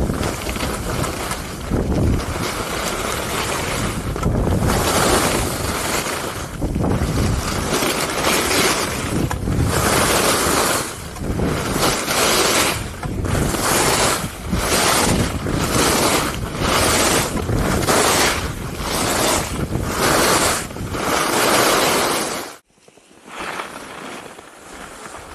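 Skis carving down a groomed piste, the edges scraping over the snow and swelling with each turn about once a second, with wind rushing over the camera microphone. The scraping drops away sharply near the end, leaving quieter snow and wind noise.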